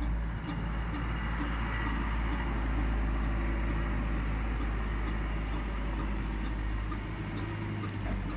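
The boat Franek Zubrzycki's engine running steadily as it motors through the harbour. A nearby excavator's engine runs at the same time and largely drowns it out.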